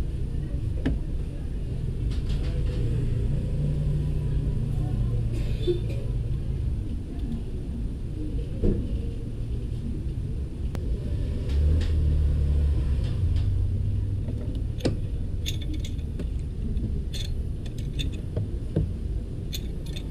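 Steady low background rumble, with scattered light clicks and small metallic ticks of a spark plug and a tool being handled and fitted by hand; the ticks come thicker near the end.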